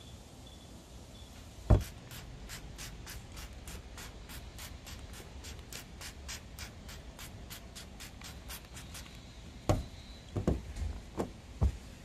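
Trigger sprayer on a bottle of Turtle Wax Wax & Dry spray wax squeezed over and over, short hissing sprays at about three or four a second, after a single thump about two seconds in. Near the end come several thumps of handling as the microfibre towel is worked on the paint.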